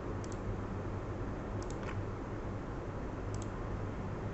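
Computer mouse clicking three times, each click a quick double tick of button press and release, over a steady hiss and low hum.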